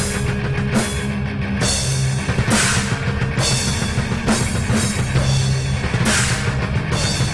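Death metal instrumental produced in FL Studio: a drum kit with a cymbal crash about once a second over sustained low notes.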